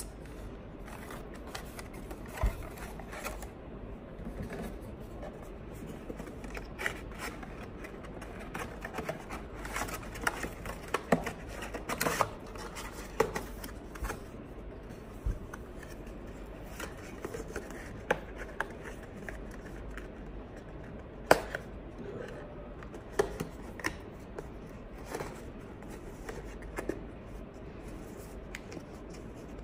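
Cardboard and plastic mouse packaging being handled: scattered taps, scrapes and rustles with several sharp clicks, the loudest about two-thirds of the way through, over a steady low background hum.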